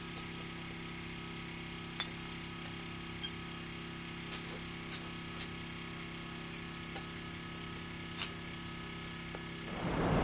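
Steady faint hum with a few light clicks and taps as the parts of a pneumatic sander are handled. Near the end, a loud rushing noise swells up.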